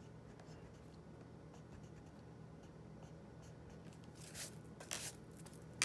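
Graphite pencil scratching faintly on graph paper as lines are drawn, with a few short, louder strokes near the end.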